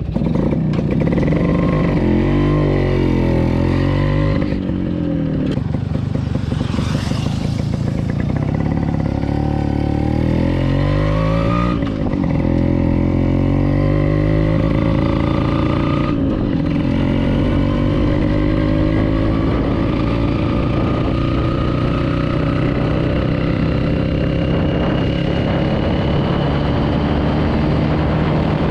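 HD3 cafe racer's motorcycle engine pulling through the gears while riding: the pitch climbs in each gear and drops at the shifts, about four times in the first half, then rises in one long, steady pull.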